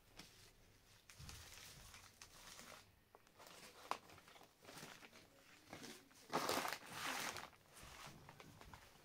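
Thin dry flatbread rustling and tearing as it is handled, in irregular bursts, with a sharp click about four seconds in. The rustling is loudest from about six and a half to seven and a half seconds in.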